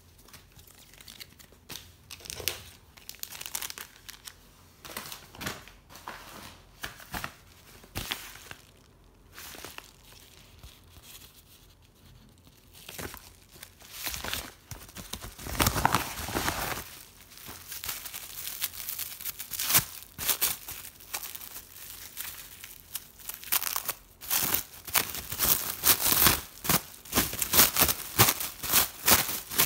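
Packaging being handled: scattered rustles and clicks of plastic card cases and a paper envelope, growing into a fast, loud crinkling of the clear plastic wrap around a card over the last several seconds.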